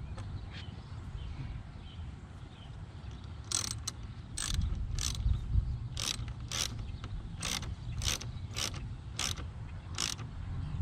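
Hand ratchet wrench being worked back and forth, a short run of pawl clicks on each return stroke, about two strokes a second, starting about three and a half seconds in, over a low steady hum.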